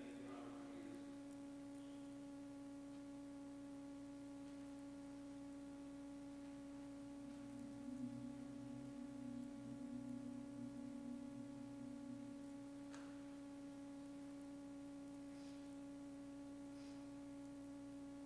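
Choir softly humming one sustained drone note, held steady, with a lower note joining from about seven to twelve seconds in.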